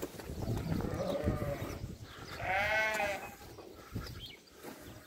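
Sheep bleating in a flock: one loud, long bleat about two and a half seconds in, with fainter bleats before it.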